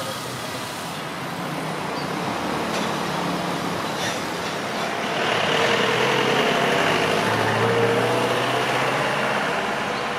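A motor vehicle drives past over a steady background of noise. Its engine drone swells about halfway through and fades again near the end.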